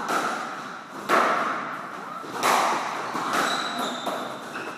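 Squash rally: the ball is struck by the rackets and smacks the court walls, three sharp hits each ringing in the enclosed court, with a brief high squeak near the end.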